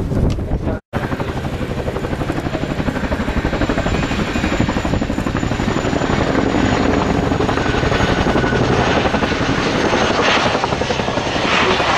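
RAF Chinook tandem-rotor helicopter flying low and slow, its twin rotors beating rapidly and evenly over the turbine noise. The sound cuts out briefly about a second in.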